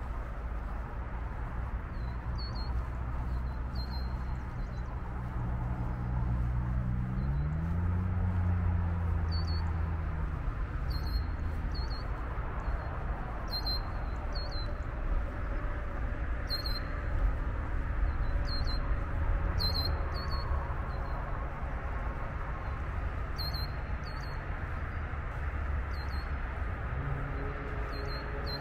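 Short, high bird chirps repeating every second or two over a steady rumble of distant road traffic. About seven seconds in, an engine hum rises in pitch.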